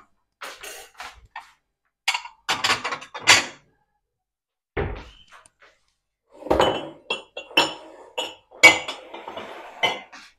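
Kitchen clatter of dishes being handled on a countertop: plates and mugs set down and moved, giving a run of knocks and clinks, with one dull thud just before five seconds in.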